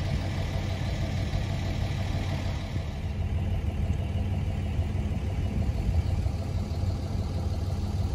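A car driving at a steady speed: a continuous low engine and road rumble.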